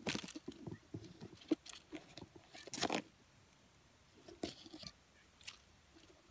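Soft, irregular crackling and rustling of leaves and twigs, a scatter of small crunches and clicks with the loudest about three seconds in.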